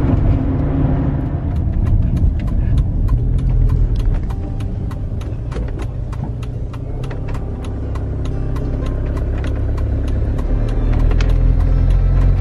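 Motorhome engine and road noise heard from inside the cab, a steady low rumble with frequent light clicks and rattles. It grows louder over the last few seconds.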